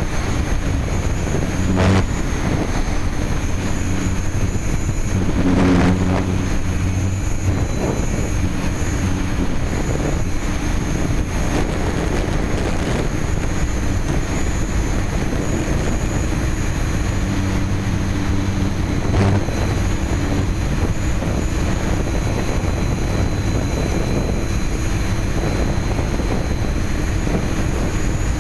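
Hexacopter's electric motors and propellers running steadily, heard close up through the on-board key chain camera's microphone, with a constant low hum and a thin high whine. The sound swells briefly about 2, 6 and 19 seconds in.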